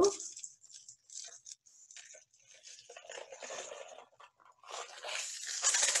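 Homemade cardboard-tube rain stick filled with dry beans and rice, tilted slowly: a soft trickling hiss of grains sliding and pattering against each other inside the tube. It grows much louder near the end as the tube is moved faster.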